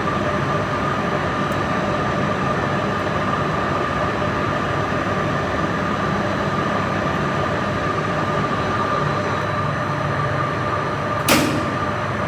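Steady machinery drone with a constant whine in a chiller plant room. A contactor in the 2,500-ton chiller's starter clacks sharply once, about eleven seconds in, during the starter dry-run test.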